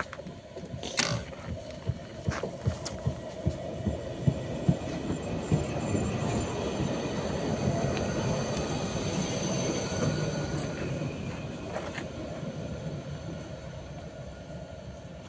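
A passing vehicle rumbling, swelling to its loudest in the middle and fading away, with a faint high steady whine above the rumble.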